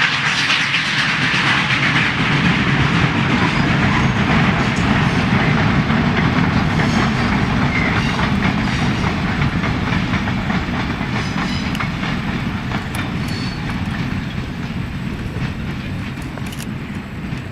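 Freight cars of a steam-hauled train rolling past, the wheels clicking over the rail joints in a steady clatter that slowly fades toward the end.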